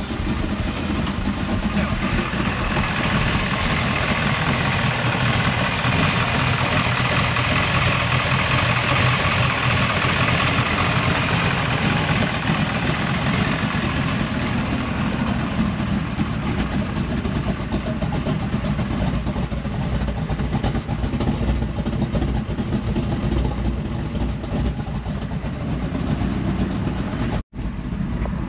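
540-cubic-inch big-block Chevy V8 running through a new true dual 3-inch exhaust with Borla XR-1 mufflers, a steady engine sound that grows somewhat louder for several seconds in the first half.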